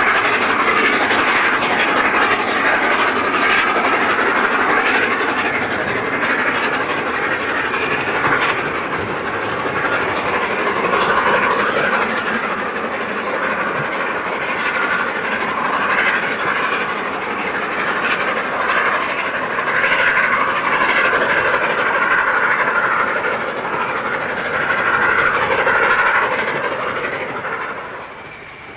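Steam locomotive working hard with a train, heard from a distance as a steady rushing of exhaust and running noise with some hiss. The sound drops away suddenly near the end.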